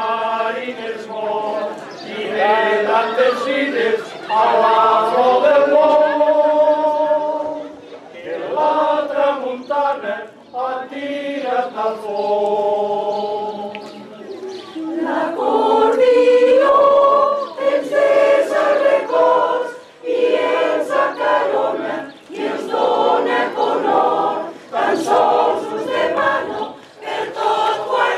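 Mixed choir of men and women singing a Catalan caramelles song, held notes in phrases with short breaks between them.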